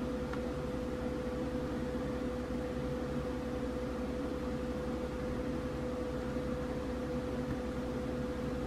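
Steady background hum with one constant mid-pitched tone.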